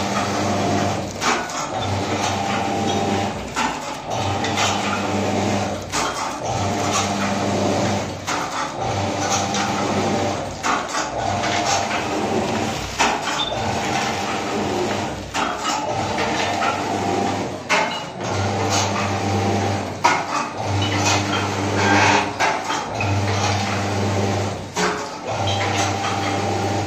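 Automatic pouch packing machine running through its cycle, with a low motor hum that switches on and off about every two seconds and sharp mechanical knocks as the pouches are made and filled with nuts.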